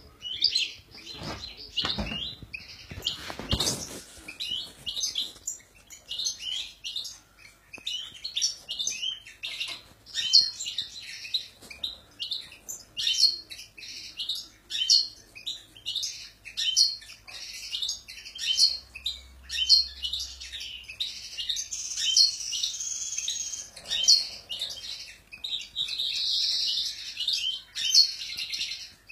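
Caged European goldfinches singing: quick, sharp chirps and twittering, trilling phrases in steady succession, thickening into fuller runs of song near the end. A short rustle of handling about three and a half seconds in.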